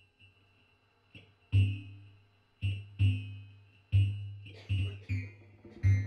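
Free-improvised music for double bass and electronics. About seven sharp, low struck notes come at irregular spacing, each ringing out and dying away, over a faint steady high tone.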